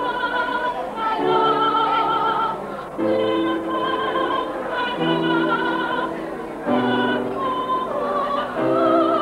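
A woman sings a classical song in operatic style, with long held notes and vibrato, accompanied by piano chords.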